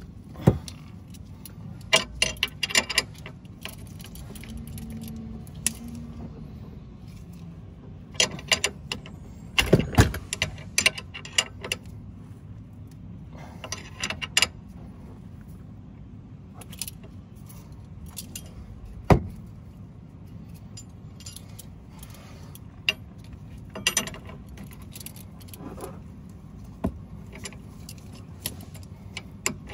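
Wrench clinking and clicking on a car's stabilizer link nut and the metal around it as the nut is tightened. The sound comes in scattered bursts of metallic taps, with a sharp knock about ten seconds in and another a little before the twenty-second mark.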